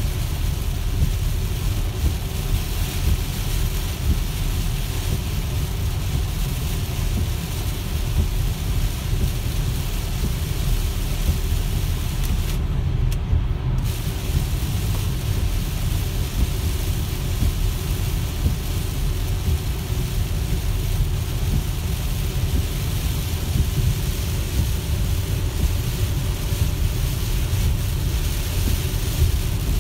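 Cabin noise of a Tesla Model X at highway speed in heavy rain: a steady low rumble of tyres on the wet road with a hiss of rain and spray on the car. The hiss drops out for about a second about halfway through.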